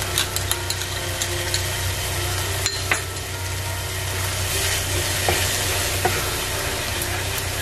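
Onion-tomato masala sizzling in oil in a nonstick pan as a wooden spatula stirs cashew paste into it, with a few light taps and scrapes of the spatula against the pan.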